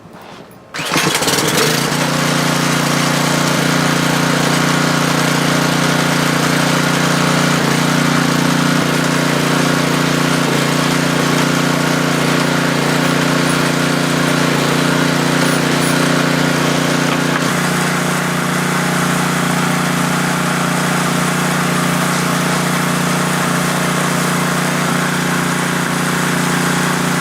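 Small gas engine of a Ryobi 2700 PSI pressure washer starting up within the first two seconds, then running steadily at a constant speed, with a slight change in its tone about two-thirds of the way through.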